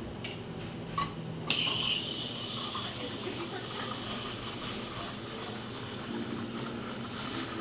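Espresso machine steam wand opening about a second and a half in and then hissing steadily as it steams milk in a stainless steel pitcher, after two light knocks.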